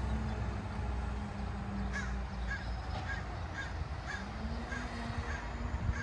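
A short high chirp repeated about twice a second, starting about two seconds in, over a steady low hum.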